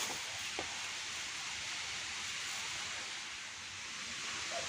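Steady, even hiss of outdoor background noise with no clear single source, and a faint click near the start. A bird's low call begins just at the end.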